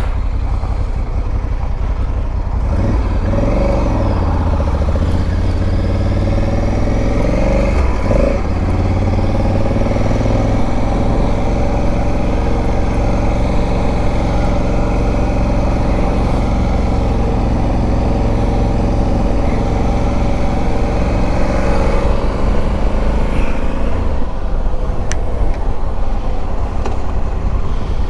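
Dual-sport motorcycle engine under way. It revs up and down through the gears in the first several seconds, then runs at a steadier cruising pitch.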